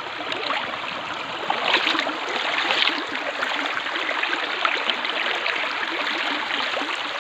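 Water rushing steadily and without a break, as at a waterfall or fast mountain stream.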